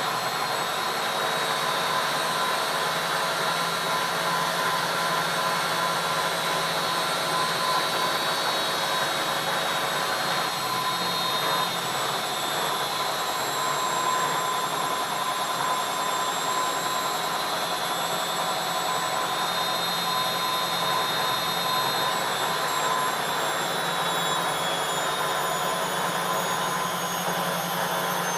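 ELIN A 100 E washing machine running at a steady speed: a continuous motor whine with several held high tones over a low hum, the higher tones sliding slightly lower near the end.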